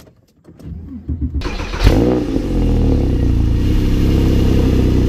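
Porsche 911 997.1 CSR flat-six being started: the starter cranks briefly, the engine catches with a sharp rev flare about two seconds in, then settles into a steady idle through its CSR exhaust.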